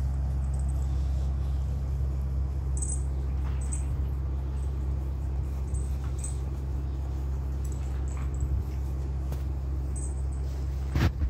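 Young puppies giving faint, short, high squeaks every second or two over a steady low hum. A loud bump comes near the end.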